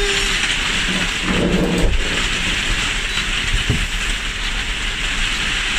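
Steady rain hissing, with a few low knocks about a second and a half in.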